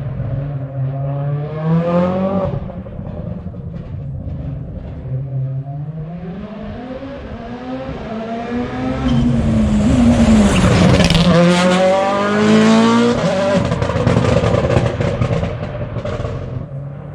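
Hyundai i20 N Rally1 rally car's turbocharged four-cylinder engine driven hard, its revs climbing and dropping several times as it approaches. It is loudest about ten to thirteen seconds in as it passes, then fades away.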